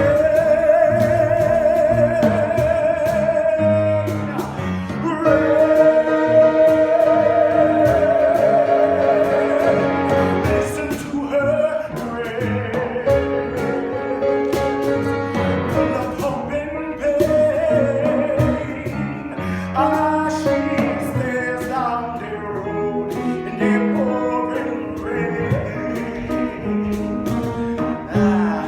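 Musical-theatre song: a voice holds long sung notes with vibrato over instrumental accompaniment, then moves through shorter phrases.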